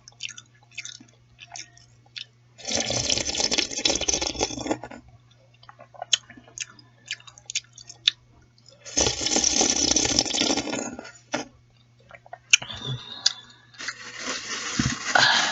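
Close-up eating of chicken noodle soup: wet chewing and lip smacks in many short clicks, broken by long slurps of noodles and broth about three seconds in, about nine seconds in, and again near the end.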